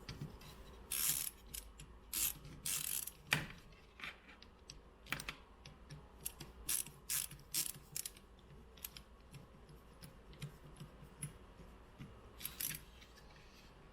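A screwdriver driving screws into a soundbar's plastic housing: a run of irregular clicks and short scraping rasps.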